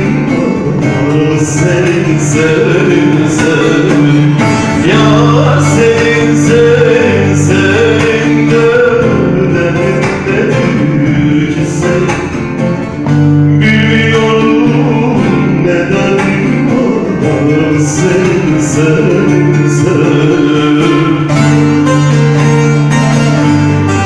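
A man singing a Turkish folk song, accompanying himself on a strummed bağlama (long-necked Turkish lute).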